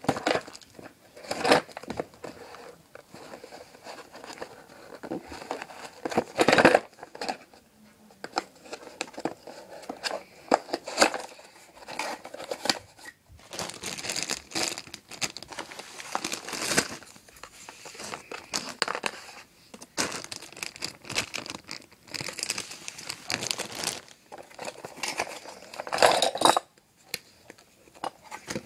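Plastic packaging crinkling and rustling as a clay sushi-maker kit is unpacked from its cardboard box, its clear plastic bag and green plastic mould handled, with two louder bursts of handling noise, about six seconds in and near the end.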